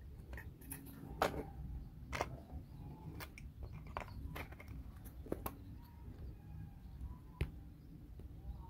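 Irregular light clicks and taps of small wooden puzzle pieces being handled and pressed together, with a few sharper clicks among them.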